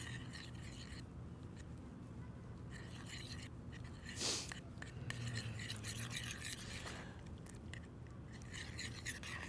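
A metal spoon stirring and scraping a thick miso-butter paste around a small stainless steel saucepan, in soft scratchy strokes. There is one brief louder scrape about four seconds in.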